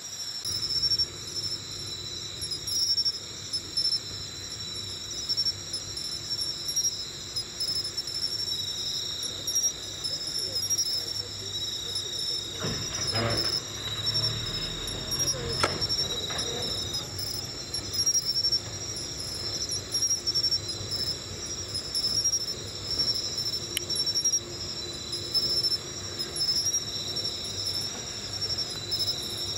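Crickets chirping steadily in a constant high trill. About halfway through there is a brief low rumble with a couple of knocks.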